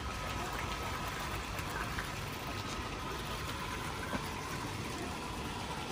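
Steady hum of a koi pond aerator with its water churning, a faint thin whine held above it.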